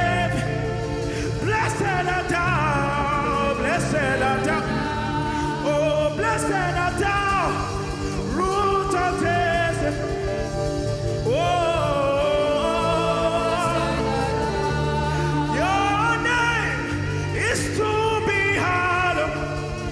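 Live gospel worship music: a singer's sliding, ornamented vocal lines over a backing band with sustained low notes.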